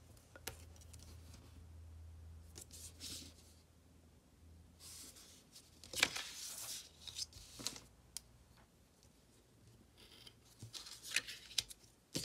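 Quiet handling of washi tape and paper: tape pulled from its roll and pressed along the edge of a planner page, with scattered crinkles, taps and rustles. The louder rustling comes about five to seven seconds in and again near the end.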